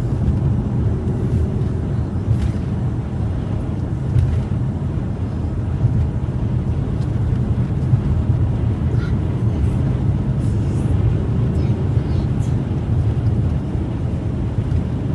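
Steady low drone of tyres and engine heard from inside a vehicle cabin cruising at highway speed.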